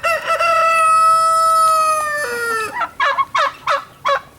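A rooster crowing: one long, drawn-out call that drops in pitch near its end, followed by about five short, sharp bird calls.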